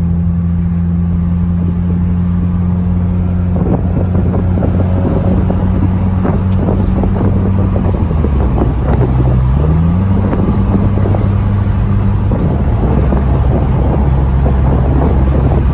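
Honda Civic's four-cylinder engine and exhaust under way through an aftermarket electronic valved muffler with the valve fully open, giving a deep drone. The engine note drops about eight seconds in and climbs back a couple of seconds later. Wind buffets the microphone from about four seconds in.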